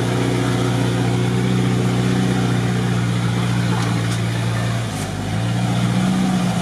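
Off-road 4x4's engine heard from inside the cab, pulling steadily as it drives through a mud pit, with a couple of faint knocks of mud hitting the windscreen. The engine note dips briefly about five seconds in, then picks up again.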